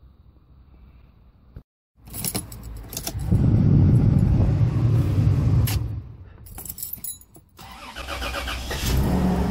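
Keys jangle as the Toyota Prado's engine is cranked and starts about two seconds in, then runs.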